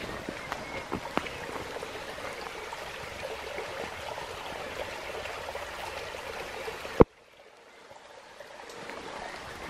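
Small woodland stream trickling steadily as a soft, even rush of water. About seven seconds in it stops abruptly with a sharp click, and a quieter outdoor hush slowly fades back in.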